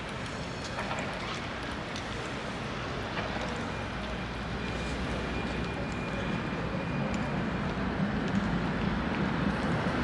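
Street traffic noise: a steady wash with a low vehicle rumble that grows louder over the last few seconds.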